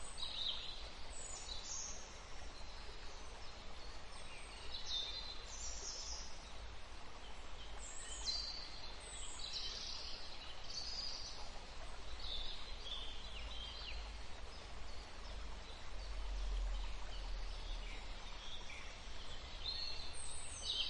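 Forest ambience: several birds calling, with short falling whistles and chirps scattered throughout over a steady faint background hiss and a low rumble.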